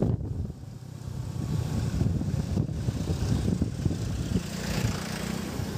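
Wind buffeting the microphone while riding along a road, a fluctuating low rumble mixed with the noise of traffic and a vehicle engine.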